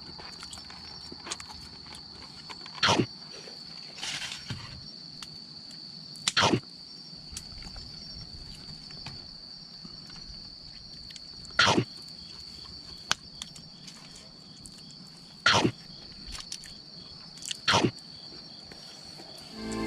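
Campfire wood popping sharply every few seconds, over a steady high-pitched drone of crickets.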